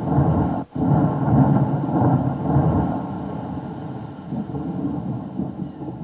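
Thunder sound effect played from a DY-HV20T MP3 module under Arduino control: a loud rolling rumble that cuts out for an instant under a second in, then comes back and slowly fades away.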